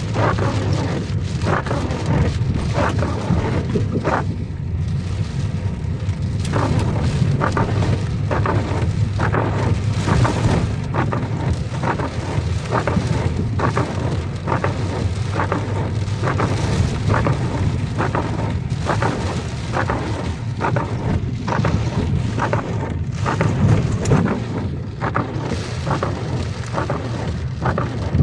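Heavy rain in a thunderstorm: a continuous low rumble with a dense spatter of sharp drop hits.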